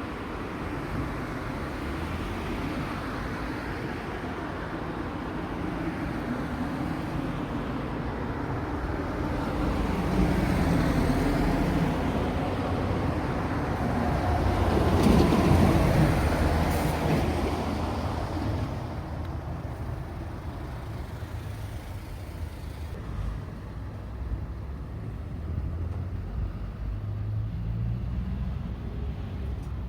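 Road traffic: cars and heavier vehicles driving past, with one loud pass about halfway through.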